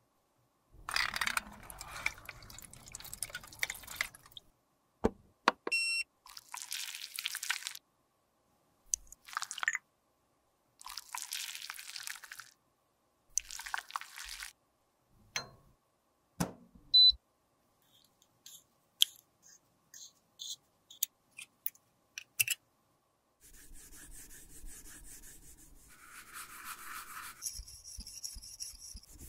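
Close-up handling sounds of makeup being worked by hand: bursts of scraping and rubbing, sharp taps and clicks, the loudest a single sharp click partway through, then a steadier stretch of scraping near the end.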